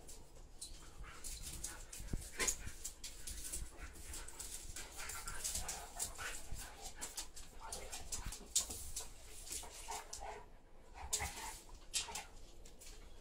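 Two dogs sniffing and nuzzling at each other, with short scuffling noises and a few soft whines.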